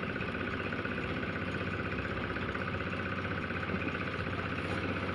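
A small engine running steadily at an even speed, with a constant hum and a light rhythmic flutter.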